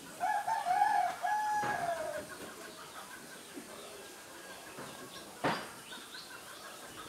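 A rooster crowing once, a wavering call of about two seconds that drops in pitch at the end, followed a few seconds later by a single short sharp sound.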